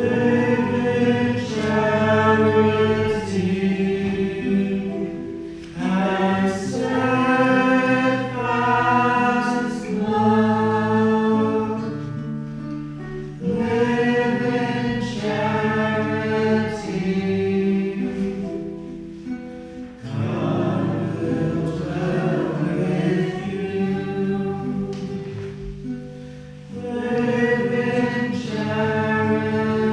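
Congregation singing a Taizé chant with acoustic guitar accompaniment, the short sung phrase repeating about every seven seconds.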